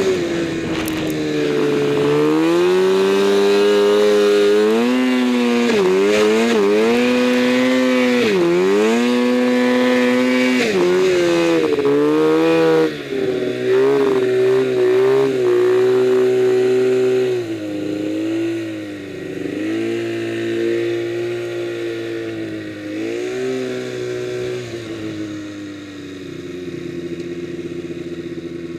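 Arctic Cat M1000 snowmobile's two-stroke twin engine revving up and down over and over as it ploughs through deep powder, then easing to a lower, quieter, steadier note for the last ten seconds or so.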